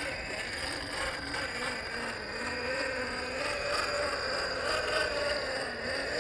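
Brushed 550 electric motor and gear drivetrain of a 1/10 scale RC crawler whining, the pitch rising and falling with the throttle as it wades through a shallow puddle.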